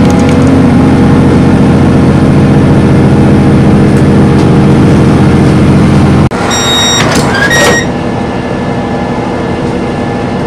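Regional train's engine running while stopped at a station: a loud, steady hum of several even low tones. It cuts off abruptly about six seconds in, giving way to quieter noise with a few short high-pitched tones.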